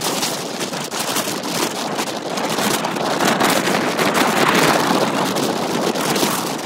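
Strong storm wind buffeting the microphone: a loud, even rushing that swells toward the middle and eases a little near the end.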